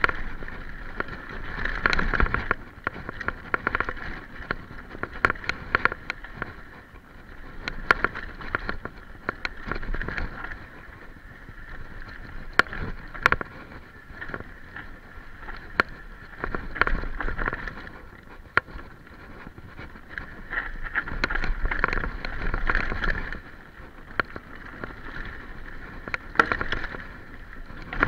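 Mountain bike riding fast down a dirt trail: a continuous rush of tyre and trail noise that swells and fades, broken by frequent sharp knocks and rattles as the bike hits bumps.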